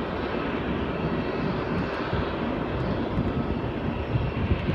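Jet engines of a taxiing Airbus A319 running at low power, a steady rumble.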